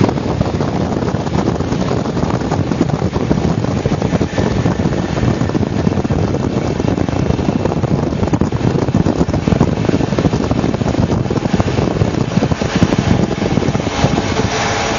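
Wind buffeting the microphone over the steady rumble of vehicles driving at speed: a RÁBA H14 military truck on the move, filmed from a vehicle travelling alongside.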